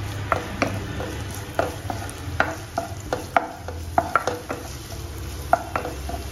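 Wooden spoon stirring chopped ginger and garlic in oil in a nonstick wok, knocking and scraping against the pan at an irregular few times a second, over a light sizzle of the sautéing garlic and ginger and a low steady hum.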